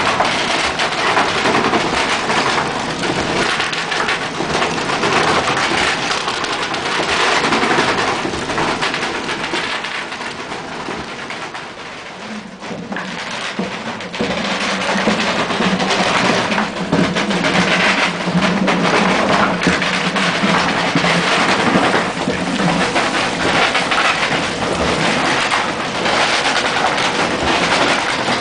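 Wind-driven gristmill running: the millstones grinding corn and the wooden gearing turning, a steady rumbling clatter. The shaft-vibrated feed chute rattles fast as it shakes corn into the stones. A lower drone joins about halfway through.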